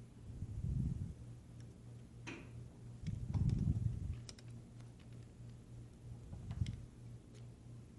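Small Phillips screwdriver working tiny screws out of a tablet's frame: scattered faint clicks and ticks, with three dull low bumps from handling, over a steady low hum.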